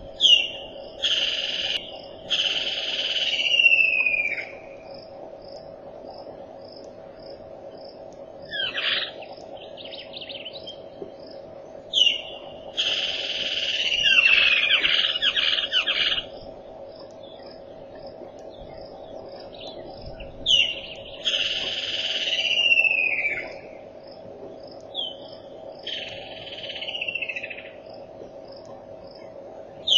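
Birds singing in loud phrases every few seconds: descending whistles mixed with harsh, buzzy notes. Under them an insect calls in an even series of high ticks, about two a second, over a steady low hum.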